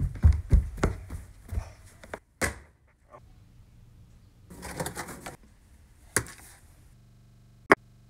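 Quick footsteps thudding down carpeted stairs, about three steps a second, slowing after about two seconds. Then a few knocks and clicks, a brief rustle of a cardboard cake box being handled, and a sharp click near the end as a plate is set down on a wooden table.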